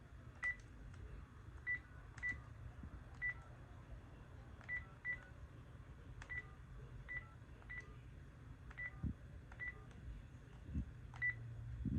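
Phone keypad tones as a number is dialled: about a dozen short beeps at uneven intervals, each with a light tap, over a faint low hum.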